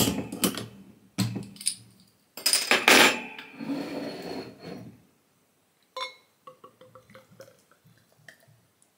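A 0.3 l glass beer bottle being opened and handled: knocks and clinks of glass and metal, then a loud burst of hiss about two and a half seconds in that trails off over the next two seconds as the cap comes off. Light clinks of glass follow as the pour into a glass begins near the end.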